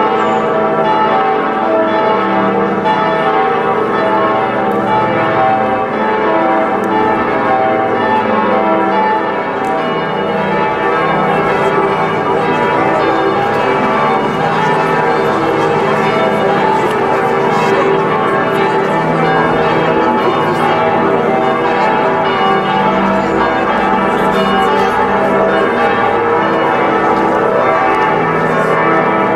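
The full peal of Worms Cathedral's church bells, all swinging and ringing together in one dense, continuous, overlapping clangour of many pitches.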